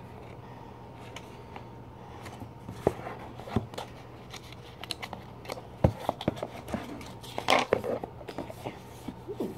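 Cardboard box being handled and turned over on a wooden table: scattered light taps, clicks and scrapes, with a brief louder burst about seven and a half seconds in.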